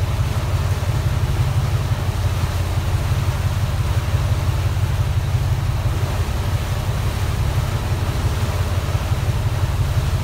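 Motor yacht's engine running steadily underway, a low rumble, with water rushing and churning in its wake.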